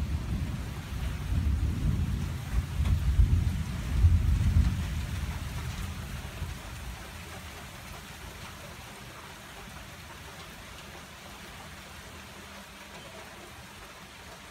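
Heavy rain pouring steadily, with a low rumble of thunder over the first few seconds that swells twice and dies away by about halfway, leaving only the even hiss of the rain.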